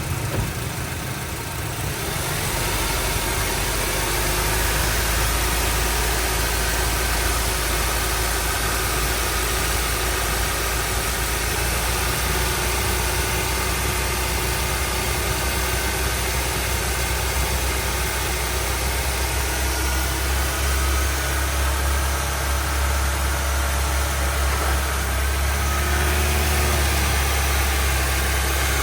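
Honda Civic engine idling, a steady low hum that grows louder about two seconds in.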